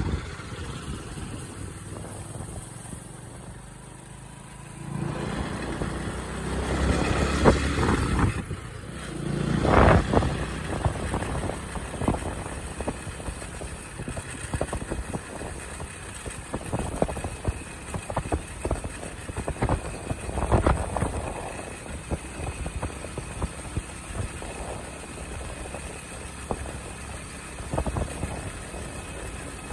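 Hero Splendor motorcycle's single-cylinder four-stroke engine running at a steady cruise, heard from the rider's seat with wind rushing over the microphone. The sound grows louder for a few seconds about five to ten seconds in, and wind buffets come and go.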